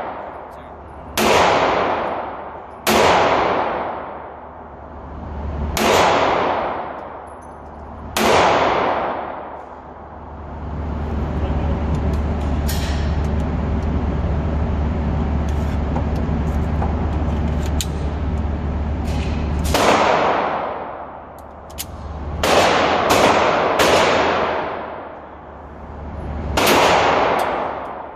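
Sig P365 9mm pistol firing single shots, each with a long echoing decay off the range's walls: about four spaced shots, then about ten seconds of steady hum, then about five more, three of them fired in quick succession.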